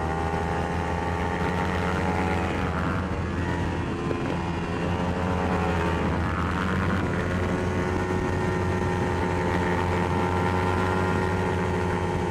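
Small sportbike engine running hard at high revs on a racetrack, heard from the rider's own bike with wind noise. The pitch dips and climbs again a couple of times as the throttle or gear changes.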